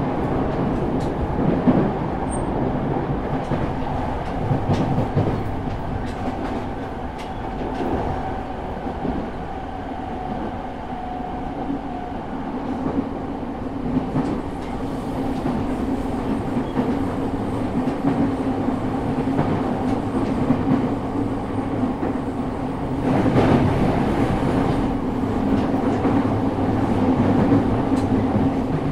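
Running sound inside a JR East E217 series motor car (Mitsubishi GTO-VVVF inverter, MT73 traction motors) travelling at line speed. A steady motor and gear hum sits over wheel-on-rail rumble, with scattered clicks from rail joints. The rumble grows louder for a few seconds about 23 seconds in.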